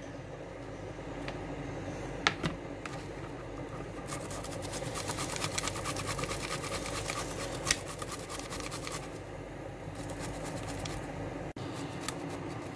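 Zucchini being grated on a hand grater: a quick run of rasping strokes, strongest in the middle, with a couple of knocks against the grater, over a steady low hum.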